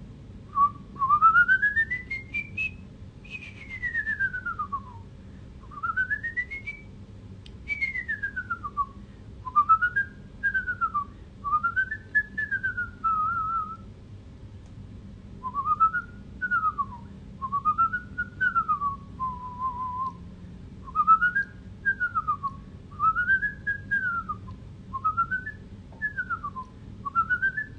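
A man whistling a tune through pursed lips. It opens with a few long notes sweeping up and down, then runs on in many short phrases that rise and fall.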